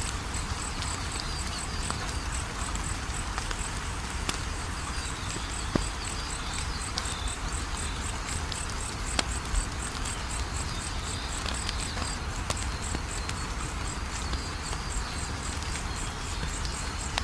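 Fireplace fire crackling with scattered sharp pops, the loudest a few seconds in, over crickets chirping steadily in a high, even pulse about three times a second.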